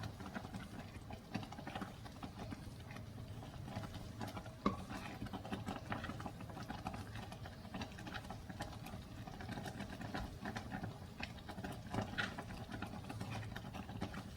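Thick kheer (rice cooked down in milk) simmering in a pan on the flame, with many small irregular pops and clicks from the reduced milk, over a steady low hum. The thickness shows it is nearly done.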